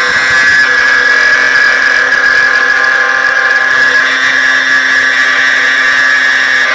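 Fenstek CMC3-2500 three-axis CNC copy router's spindle milling an aluminium window profile: a loud, steady high-pitched whine from the cutter in the metal, with a lower steady tone beneath it.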